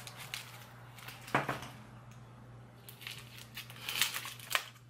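A Dum Dums lollipop wrapper crinkling as it is unwrapped by hand: a run of irregular crackles, loudest about a second in and again near the end.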